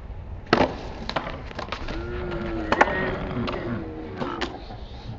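Skateboard kickflip attempt ending in a slam: a loud sharp smack about half a second in, then scattered clacks of the board on concrete and another sharp knock near the middle. A drawn-out wavering tone runs through the middle.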